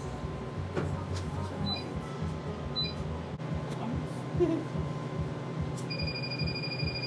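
Soprano Ice laser hair-removal machine: two short electronic beeps about two and three seconds in, then, about six seconds in, a steady high beep tone starts as the handpiece is set on the leg to fire. All of it sits over a steady low hum.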